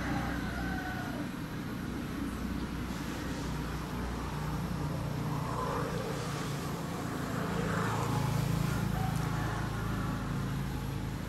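Steady low motor hum, like road traffic or a running engine.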